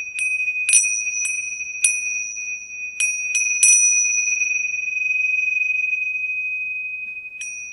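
Tingsha cymbals struck together, ringing with a high, clear tone: four strikes about half a second apart, three quick strikes about three seconds in that are left to ring out slowly, and a light strike near the end.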